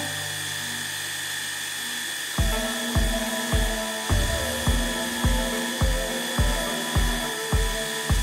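Background music under a steady high whine from a milling machine's spindle as an end mill cuts a slot in steel. About two and a half seconds in, the music takes up a steady beat of nearly two thumps a second.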